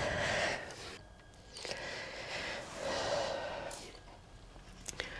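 A man breathing heavily in three hard breaths while straining to stretch a kickstand return spring onto its hook, with a few faint metal clicks.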